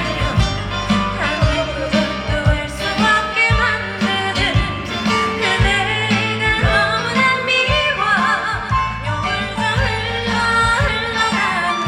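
A woman singing a trot song live over accompaniment with a steady bass beat, her voice wavering on held notes.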